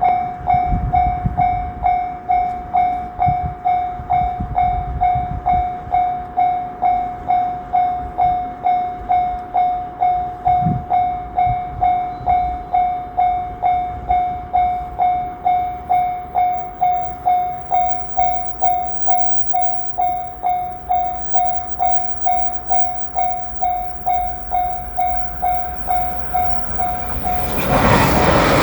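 Japanese railroad crossing warning bell ringing its steady 'kan-kan' tone, about two strikes a second, as a train approaches. Near the end the bell stops and a JR Shikoku 8000 series electric limited-express train rushes through the crossing, a loud wide rushing noise.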